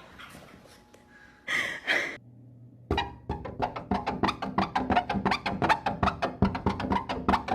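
Background music of quick, pitched, struck notes, several a second, coming in about three seconds in. Before it come two short loud sounds about a second and a half in.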